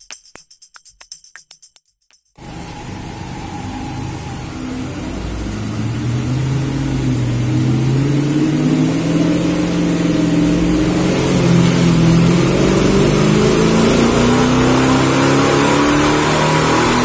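Chrysler 300C's 5.7-litre Hemi V8 pulling under load on a hub dyno, its revs climbing steadily and the engine getting louder through the pull. It begins suddenly about two seconds in, after a short stretch of quiet background music.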